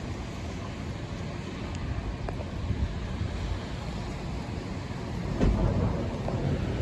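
Thunderstorm outdoors: a steady rush of wind and rain with a low rumble, swelling suddenly louder about five and a half seconds in as thunder builds.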